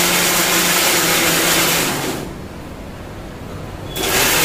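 Electric kitchen mixer grinder running in pulses: the motor runs at full speed, is switched off about two seconds in and winds down, then starts again near the end.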